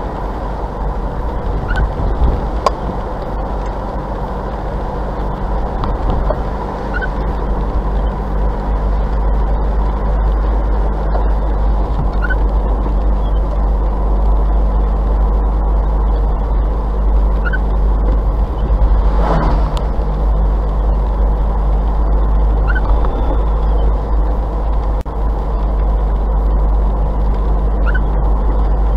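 Car interior road and engine noise, steady, at about 45 km/h. A short squeak from the windscreen wipers comes about every five seconds. Around two-thirds of the way through, an oncoming vehicle passes with a brief whoosh.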